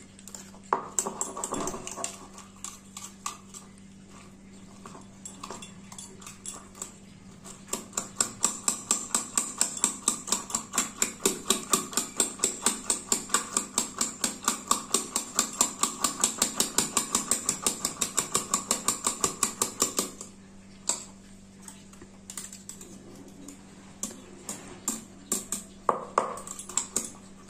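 Wire whisk beating egg and chopped vegetables in a stainless steel tumbler, its wires clicking against the steel sides. The clicks come unevenly at first, then in a fast, even rhythm of about five strokes a second from about eight seconds in until about twenty seconds in, then slow to scattered clicks again.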